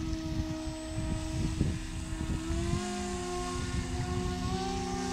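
Brushless electric motors of two radio-controlled jet-pump model boats, one also driving a pusher air propeller, whining steadily at speed, one pitch rising slightly about halfway through. Gusts of wind rumble on the microphone over the first few seconds.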